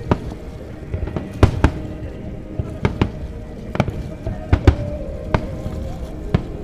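Aerial firework shells bursting: about ten sharp bangs at uneven intervals, some coming in quick pairs.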